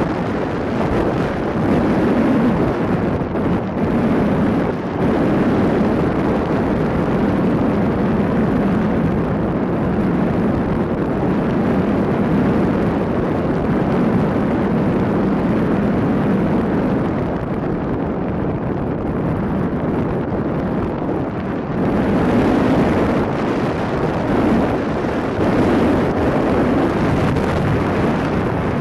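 Wind rushing over the microphone of a camera carried on a flying eagle's back, a loud steady rush. The hiss thins for a few seconds past the middle, then comes back.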